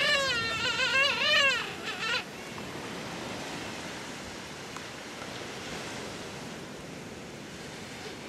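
Elephant seal giving a loud, wavering wail for about two seconds, its pitch wobbling up and down. After it comes a steady rushing background.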